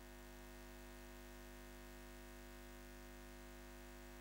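Near silence: a faint steady hum made of several fixed tones, unchanging throughout.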